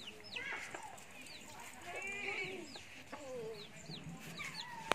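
Chickens clucking, with repeated short, high, falling chirps about twice a second and a sharp click near the end.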